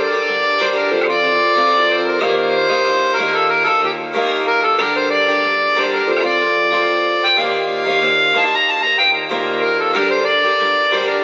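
Instrumental background music, with held melody notes that step from one pitch to the next.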